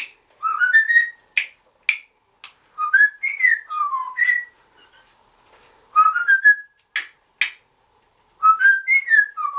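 Timneh African grey parrot whistling: four short phrases of stepped notes that climb and fall, with sharp clicks between them.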